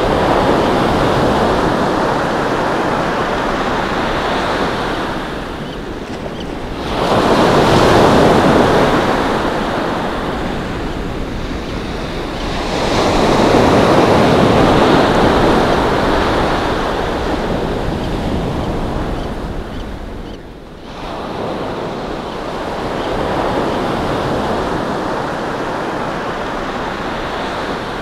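Ocean surf breaking on the shore, the wash swelling and fading in long surges, the loudest about eight and fourteen seconds in.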